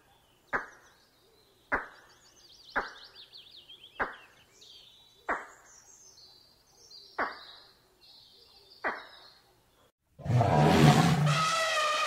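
Small birds chirping and trilling behind a series of sharp knocks, about one every second or two. Near the end a loud, drawn-out animal call starts.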